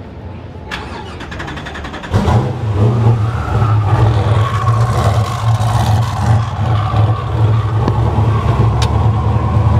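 Hennessey Venom GT's twin-turbo V8 starting: the starter cranks briefly, the engine catches about two seconds in, and it settles into a loud, steady fast idle.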